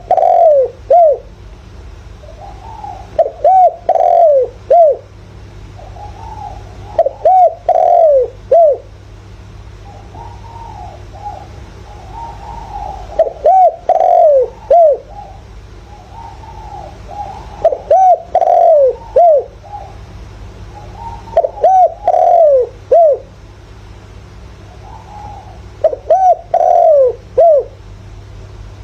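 Spotted dove cooing repeatedly, a loud phrase of several short, falling coos every four seconds or so, with softer coos between. It is the deep 'giọng thổ' style of call that keepers use as a decoy to rouse newly caught doves. A steady low hum runs underneath.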